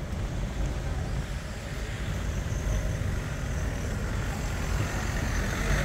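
Road traffic noise: a steady low rumble of vehicles passing on a city street.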